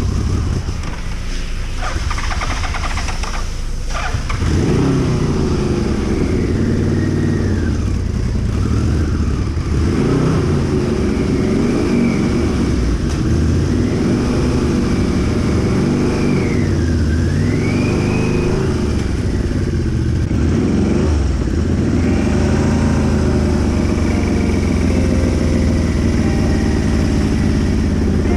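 Yamaha VMAX 1200's V4 engine running as the motorcycle rides off, its pitch rising and falling as it speeds up and slows.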